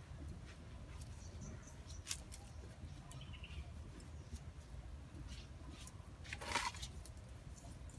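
Small clicks and taps of whole fish being handled and pushed onto a bamboo skewer, with a brief splash about six and a half seconds in as a hand dips into a metal bowl of water.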